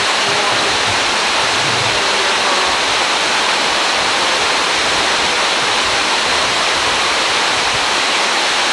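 Artificial pool waterfall pouring into the pool, a loud, steady rush of falling water heard from right beneath the falls.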